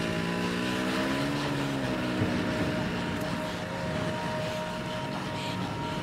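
Snowmobile engine running, heard from the sled it tows, its pitch rising about a second in and then falling away again.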